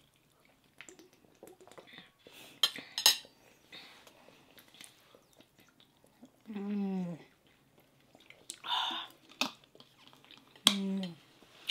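Eating at the table: a spoon and fork click against plates and bowls, with a cluster of sharp clinks about three seconds in, and soft chewing of squid adobo and rice. Two short hummed voice sounds come later.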